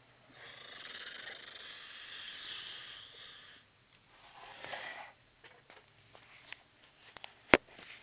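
Close handling noise: a hissing rub for about three seconds and a shorter one after it, then scattered light metal clicks and one sharp click near the end as tools and keys are handled at a desk lock.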